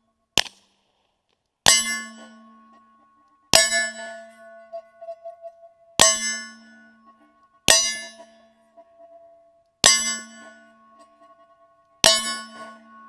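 Suppressed 9mm bullets striking an AR500 steel silhouette target: six sharp metallic clangs about two seconds apart, each ringing on for a second or more. A single short crack without any ringing comes just after the start.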